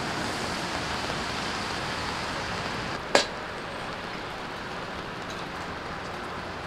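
A steady hiss with one sharp knock about three seconds in; the hiss is a little quieter after it.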